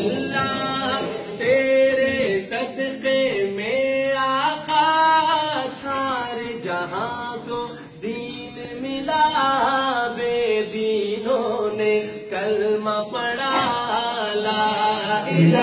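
A man's unaccompanied voice chanting an Islamic devotional song, in long held notes that glide up and down.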